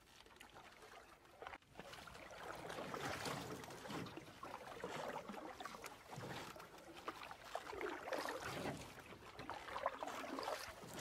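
Canoe paddling: a paddle dipping and pulling through river water, with trickling and soft splashing in uneven swells. It starts about two seconds in after a quieter moment.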